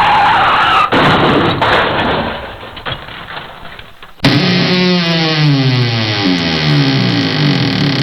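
Two comedy sound effects in turn. First a noisy screech fades out over about four seconds. Then, about four seconds in, a buzzy pitched tone starts suddenly and slides down in wobbly, repeated glides.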